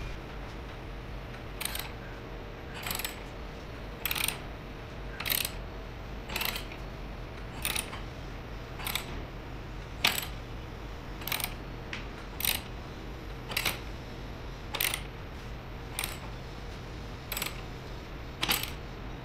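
Metal mechanism clicking at an even pace, about once every second, with each click short and sharp, over a low steady hum.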